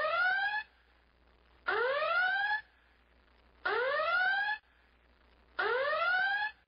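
Emergency alarm sounding in whoops: a rising tone, each about a second long, repeating every two seconds, four times.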